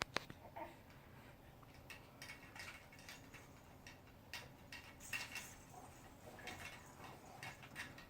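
Faint, irregular clicks and light taps from a four-month-old baby at play, with a few soft, brief baby sounds in between.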